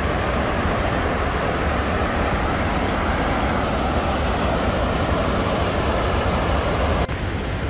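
Heavy outflow from Jackson Lake Dam's gates churning in the spillway basin: a loud, steady rush of white water with a deep rumble underneath. It cuts off sharply near the end.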